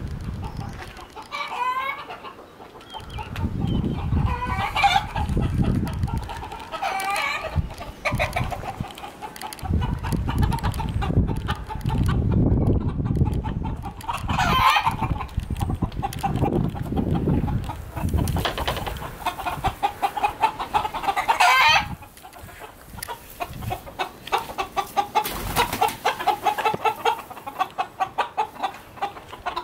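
Farmyard chickens calling: hens clucking, with roosters crowing several times. A fast run of repeated clucks comes near the end, and a low rumbling noise comes and goes underneath.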